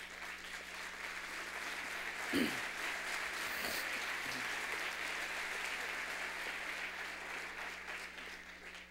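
Audience applauding steadily in a large hall, the clapping fading away near the end.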